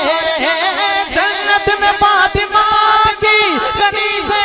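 A man's voice singing a naat into a microphone, drawing out a long ornamented phrase whose pitch wavers and glides between held notes.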